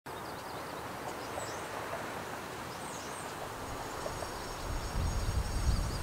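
Outdoor ambience: a steady background hiss with a few short bird chirps. Near the end a low rumble and a thin high whine build up, mechanical noise that the recordist took for someone doing metal work.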